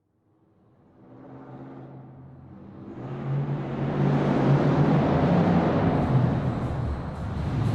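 Muscle car engine running. It grows from silence to loud over the first four seconds, then holds steady with a short dip about seven seconds in.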